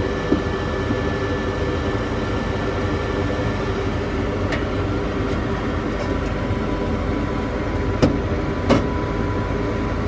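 Goodman gas furnace firing: a steady hum of the burner flames and combustion (inducer) motor, with the blower fan not yet on. It runs without the whistle once the gas valve pressure has been turned down, which the owner hears as no more sound. A few sharp knocks come from the sheet-metal front door panel being fitted back on.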